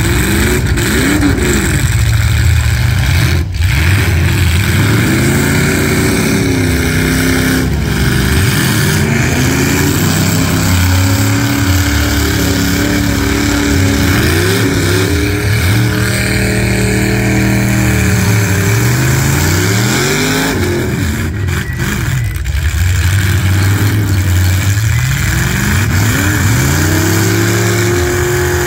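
Demolition derby cars' engines revving hard, their pitch climbing and falling again and again as the drivers rev and let off.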